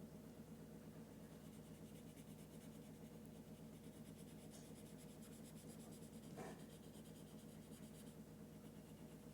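Faint, quick scratchy strokes of a felt-tip marker drawing, over a steady low hum, with a brief squeak about six seconds in.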